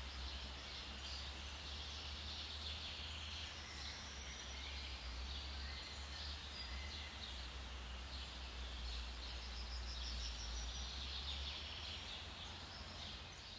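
Forest birdsong: several birds chirping and trilling at once in a continuous chorus, over a steady low rumble.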